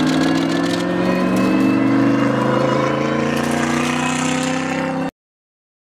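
Bentley Continental GT3 race car's twin-turbo V8 running hard through a corner, its note climbing slightly as it accelerates. The sound cuts off abruptly about five seconds in.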